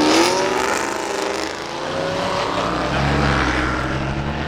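Car engine accelerating hard, its pitch climbing near the start and again about two seconds in as it revs up through the gears, then settling lower.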